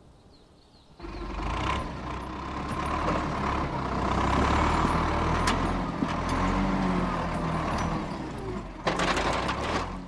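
Heavy vehicle engine running steadily with a deep rumble, starting suddenly about a second in.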